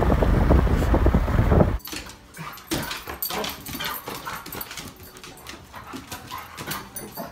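Wind and road noise rushing past an open car window, stopping abruptly about two seconds in. Then a much quieter stretch: a dog whining and yipping, with light scattered clicks and taps.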